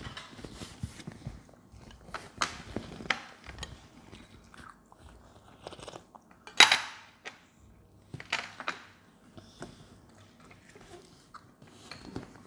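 Spoons and dishes clicking and knocking on a table during a meal, with chewing, and one louder, longer scraping sound a little past halfway.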